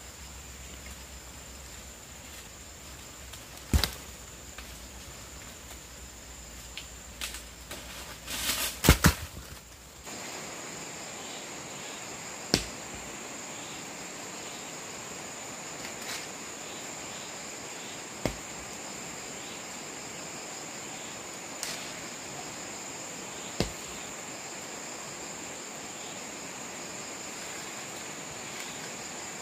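Sharp knocks or cracks every few seconds, with a quick cluster of them about eight to nine seconds in, over a steady high-pitched hum.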